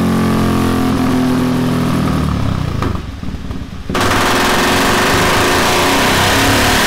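Husqvarna Vitpilen 701's single-cylinder engine, breathing through a Delkevic Mini 8-inch carbon fibre round exhaust, running hard on a dyno. The revs fall away and go quiet for about a second, then the throttle snaps open about four seconds in and it pulls loudly at high revs.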